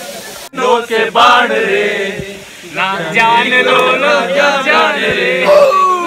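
A group of young men singing and chanting together loudly, several voices overlapping, starting abruptly about half a second in.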